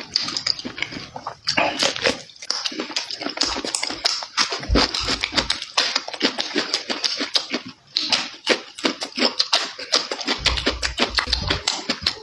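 Loud, wet chewing and lip-smacking close to the microphone: a rapid, uneven run of mouth clicks and smacks as food is eaten.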